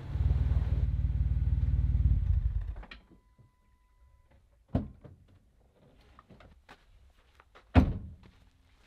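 A 2011 Jeep Wrangler Rubicon's 3.8-litre V6 idling, then switched off about three seconds in. A short steady beep follows, then two car-door thunks, the second, near the end, the louder.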